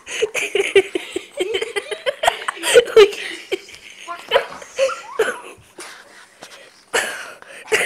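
People laughing and giggling in short, choppy bursts, with knocks from the camera being jostled.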